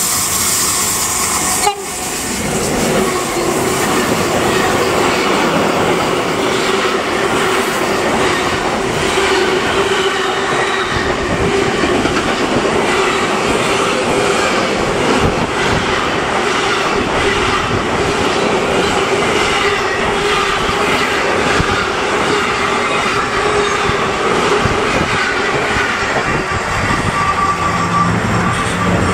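Freight train of car-carrier and trailer-carrying pocket wagons rolling past close by: continuous wheel and rail noise with clickety-clack over the rail joints and a steady tone running through it. A brief drop in the sound comes about two seconds in.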